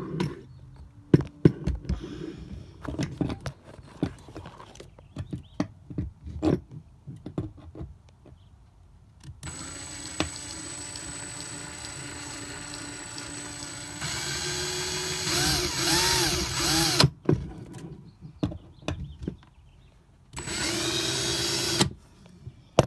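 Ryobi cordless drill drilling pilot holes in a wall, with handling clicks and knocks at first. The drill then runs steadily for about four seconds and louder for about three more as the bit cuts in. A second short, loud run comes near the end.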